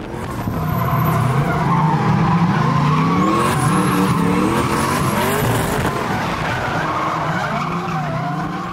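Drift car engine revving hard, its pitch climbing and dropping again and again, with tyres squealing as the car slides, heard from inside the cabin.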